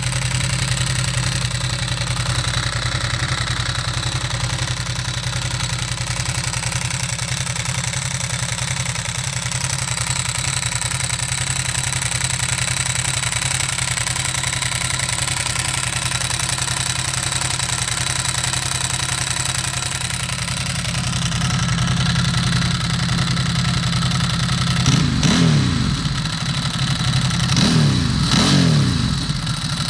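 2008 Ducati Hypermotard 1100S air-cooled L-twin idling steadily through Termignoni dual carbon-fibre slip-on exhausts. In the last few seconds the throttle is blipped a few times, each rev rising and falling quickly.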